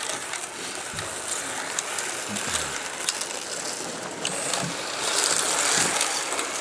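Slot cars running on a plastic track: a whirring, rattling mechanical sound with scattered sharp clicks, getting louder about five seconds in as cars pass close.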